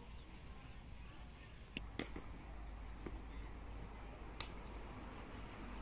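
Sharp knocks of a cricket ball making impact, a few isolated ones over steady background noise: the loudest is about two seconds in, with a fainter one just before it, and another strong one comes about four and a half seconds in.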